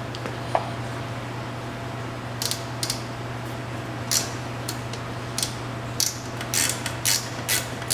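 Hand ratchet wrench being worked back and forth to loosen a bolt: a run of short clicking rasps, one per back-stroke, coming quicker toward the end, over a steady low hum.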